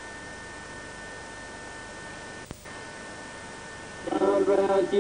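Steady hum and hiss of the recording's background noise, with a few faint steady tones and a brief dropout about two and a half seconds in. Music comes in about four seconds in.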